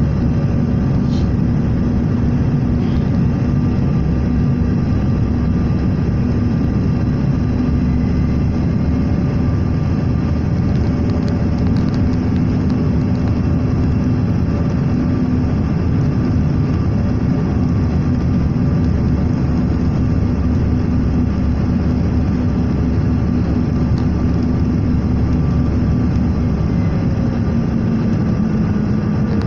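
Airliner cabin noise heard from a window seat over the wing on landing approach: the engines and rushing airflow make a loud, steady roar with a low hum. Near the end, as the plane comes over the runway, the hum drops slightly in pitch.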